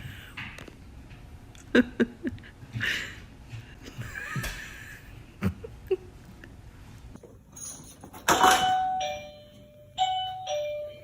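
Doorbell chime ringing ding-dong, a higher tone falling to a lower one, twice in the last two seconds. Just before it comes a loud burst of noise lasting about a second, and scattered knocks and clicks run through the first part.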